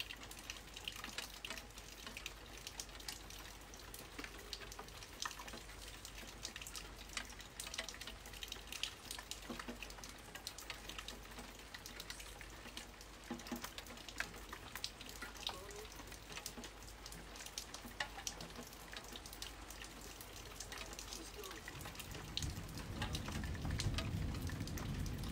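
Rain falling during a thunderstorm, a steady patter with many sharp drop ticks scattered through it. A low rumble builds in the last few seconds.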